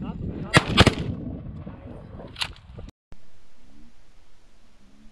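Shotguns firing at flying ducks: several sharp shots in the first two and a half seconds, two of them close together about a second in. After that there is only faint hiss.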